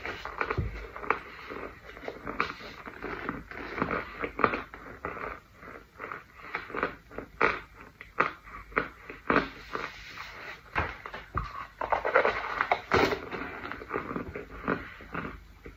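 Close-miked, irregular crunching and crackling of a pressed-powder brick being chewed, mixed with soft scraping as the brick is rolled through loose powder, with a denser flurry of crunches near the end.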